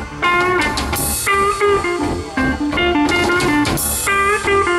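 Live rock band playing an instrumental passage: an electric guitar leads with a quick run of single notes over a drum kit and a second guitar.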